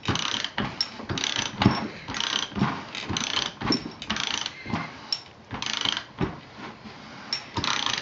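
Socket ratchet clicking in repeated short strokes as it turns the crankshaft of a partly assembled Onan B43G engine over by hand, working the freshly adjusted valves.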